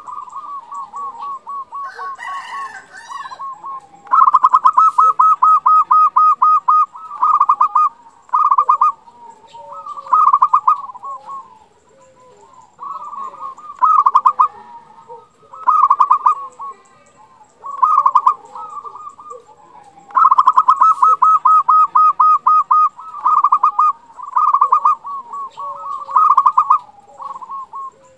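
Zebra dove (perkutut) singing: phrases of rapid staccato cooing notes, each run a fast, even string of clipped coos. Two long runs of about three seconds, one about four seconds in and one about twenty seconds in, with shorter phrases about every two seconds between them.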